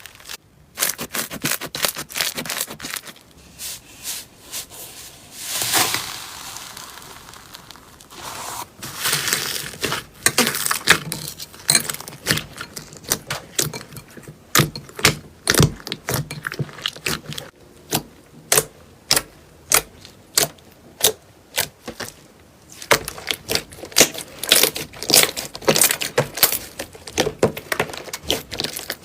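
Crunchy slime being squeezed and pressed by hand: a dense run of sharp crackles and pops, with a few softer squishing stretches, the pops coming thicker and more regular in the second half.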